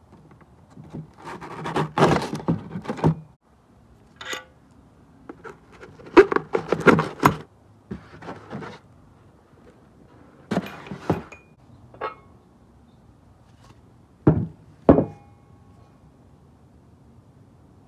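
Irregular knocks, scrapes and metal clinks of engine parts being handled: bolts pushed into a cardboard holder and the engine's main bearing girdle being moved. It ends in two sharp metallic knocks about half a second apart, the second ringing briefly.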